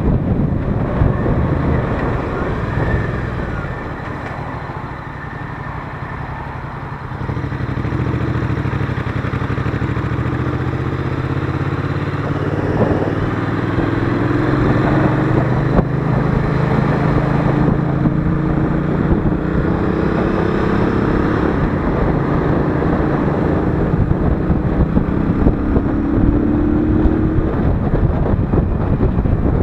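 Royal Enfield Interceptor 650's parallel-twin engine running under way, its pitch climbing slowly in long stretches as the bike gathers speed. Wind noise on the microphone, strongest in the first few seconds.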